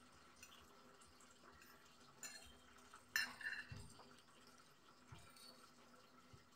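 Metal spoon and fork clinking and scraping faintly on a glass plate as vegetables are scooped up, with a few sharp taps; the loudest is about three seconds in.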